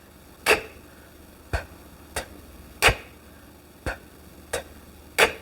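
Sharp mouth clicks, the tongue snapped against the palate in an articulation exercise. There are seven, coming in quick threes about two-thirds of a second apart.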